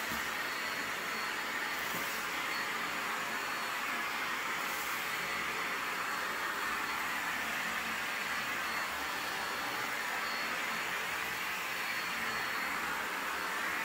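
Hoover Shoulder Commercial Backpack Pro vacuum running steadily: an even rush of airflow with a faint high motor whine.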